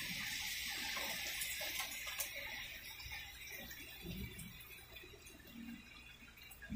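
Rain falling: a soft hiss that dies away over the first two or three seconds, with a few scattered drips.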